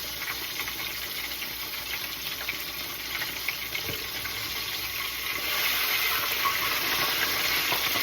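Catfish sizzling in hot frying grease, a steady crackling hiss that grows louder about five and a half seconds in, with the burner already turned off.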